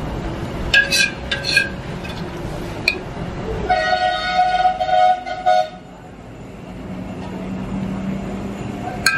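A metal ladle clinks against a large aluminium cooking pot a few times in the first three seconds. Then a vehicle horn sounds steadily for about two seconds, over a steady background hum.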